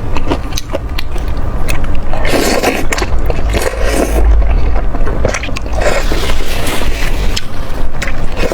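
Close-miked eating sounds of noodles and dumplings: quick wet chewing clicks at first, then several longer noisy stretches about a second apart over a low rumble.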